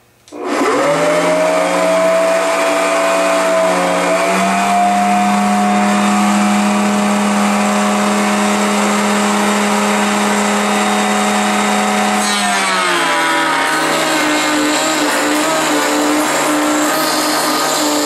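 Router in a router table with a rail-and-stile bit switched on, quickly winding up to a steady high whine. About twelve seconds in, its pitch drops and a rougher cutting noise joins as a board is fed past the bit, milling the frame profile.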